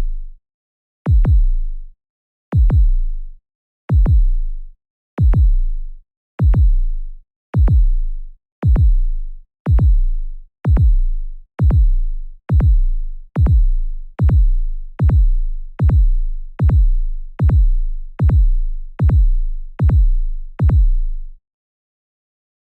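Heartbeat sound effect for suspense: deep double thumps (lub-dub) that speed up from about one beat every second and a half to more than one a second, then stop about a second before the end.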